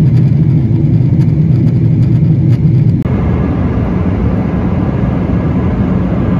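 Loud, steady rumble of a vehicle heard from inside. About three seconds in it changes abruptly to a broader, hissier roar.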